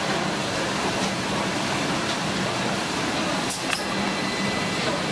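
Industrial bread-line machinery running steadily: conveyor belts and a flour duster on a dough-forming line, a constant mechanical hum and hiss. Two short clicks come about three and a half seconds in.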